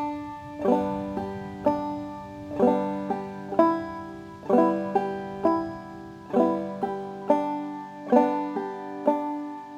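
Five-string banjo played clawhammer style in the bum-ditty rhythm: a strong melody note about once a second, each followed by a brush and a pluck of the short fifth string. Two patterns are played on the open first string, then two with the first string fretted at the second fret.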